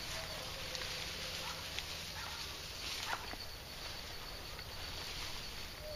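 Footsteps and rustling through tall grass and leafy brush, with a few faint snaps or ticks about two to three seconds in.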